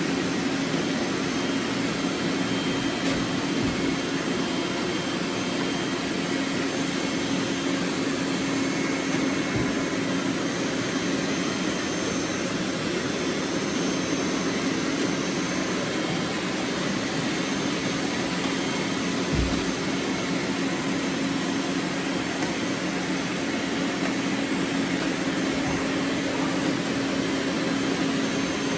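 Many robot vacuums running at once: a steady whirring hum with a constant low drone, and a couple of soft thumps.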